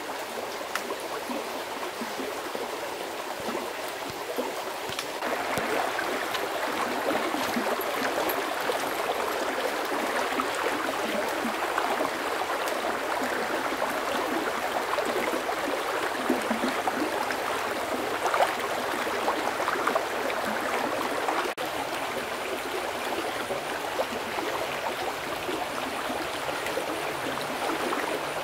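Steady rushing and trickling of a flowing stream. It gets brighter about five seconds in and shifts abruptly again around twenty-one seconds.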